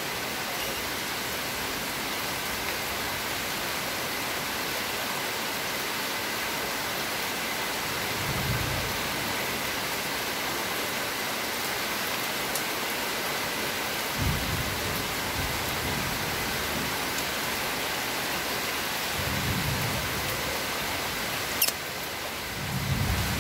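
Steady rain falling, an even hiss throughout. A few brief low rumbles break in, and there is one sharp click near the end.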